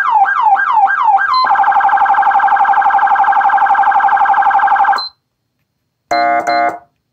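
Federal Signal SmartSiren SS2000 electronic siren on its yelp tone, a fast repeating sweep about three times a second. About one and a half seconds in it switches to the priority tone, a much faster warble, which cuts off suddenly about five seconds in. About a second later come two short blasts of its air-horn tone.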